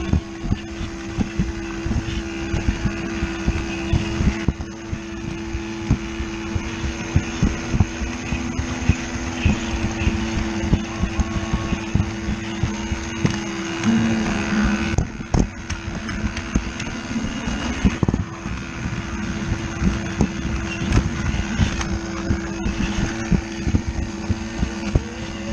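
Lego Duplo battery train's small electric motor whirring steadily, with its wheels rattling and clicking over the plastic track. The motor hum drops out for a few seconds a little past the middle.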